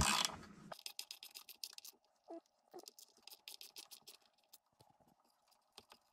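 Faint metallic clicking and scratching of an Allen key turning the motor-mount bolts of a planer. The clicks come quickly at first and thin out to scattered ticks after about two seconds.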